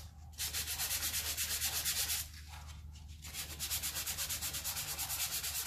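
220-grit sandpaper on a hand sanding block rubbed quickly back and forth over polyester glazing putty on a VW Beetle fender, flatting the filled spot by hand. The strokes pause briefly about two seconds in, then carry on.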